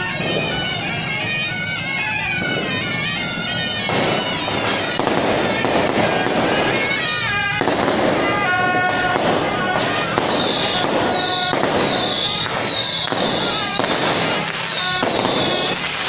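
Suona, the Taiwanese procession shawm, playing a wavering melody, then from about four seconds in strings of firecrackers crackling densely and without pause. Over the second half a high falling whistle repeats about twice a second.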